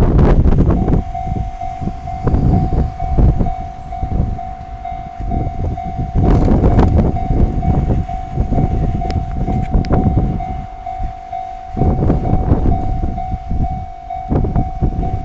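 Japanese railway level-crossing alarm, an electronic bell of the 'Tohoku' sound type, starts ringing about a second in: a rapid, steady, repeating ding at one pitch that warns of an approaching train. A loud, irregular low rumble runs underneath.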